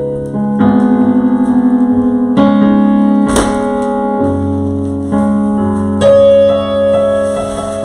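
Piano or electric keyboard playing slow, sustained chords, the chord changing every second or two, with a fast pulsing in the held notes during the first chord.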